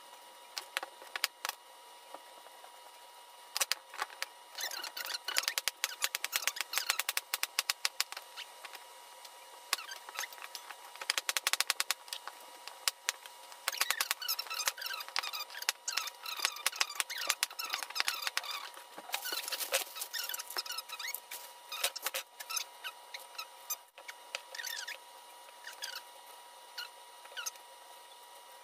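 Knife chopping vegetables on a cutting board: irregular sharp chops, some in quick runs, with squeaky crunching as the knife goes through fresh onion, pak choy, pepper and carrot.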